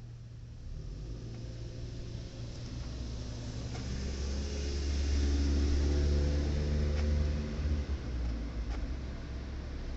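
Low mechanical hum of a motor or engine with several pitched tones, swelling about midway and easing off again, with a few faint clicks.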